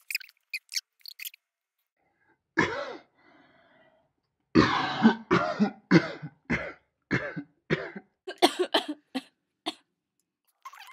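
A person coughing: one cough about two and a half seconds in, then a run of about a dozen short coughs in quick succession. A few faint high clicks come in the first second.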